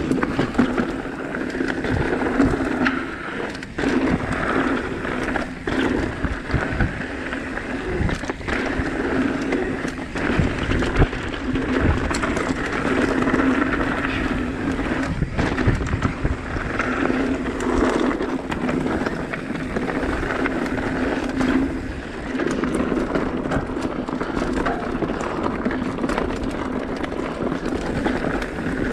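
Mountain bike rolling fast over a rocky trail: steady tyre noise with frequent knocks and rattles as the bike hits rocks.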